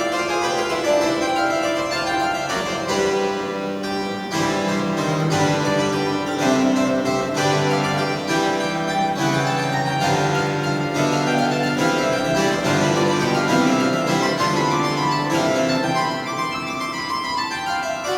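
Solo keyboard instrument playing a classical piece: a quick run of notes with crisp attacks over held lower notes.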